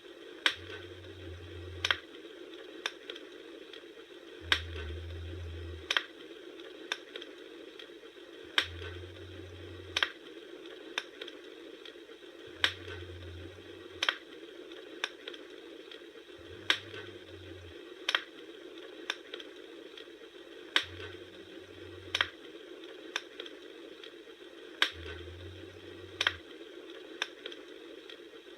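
Wood fire crackling, with sharp pops about once a second over a steady hiss of burning. A low hum comes and goes every few seconds.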